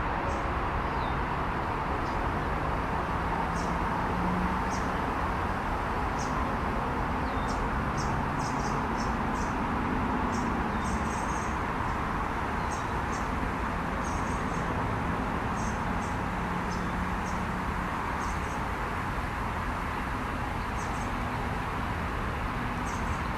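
Small birds chirping, short high notes coming every so often and in quick clusters, over a steady rushing background noise that is the loudest sound throughout.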